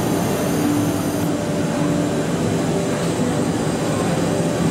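Steady loud machine noise, with a low hum that starts and stops in stretches of about a second.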